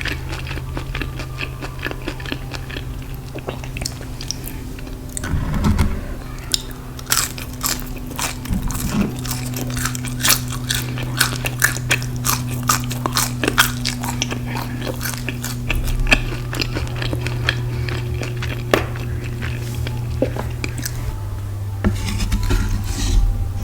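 Close-up eating: crisp crunching bites and chewing of fried food, many sharp crunches in quick succession through the middle, over a steady low hum.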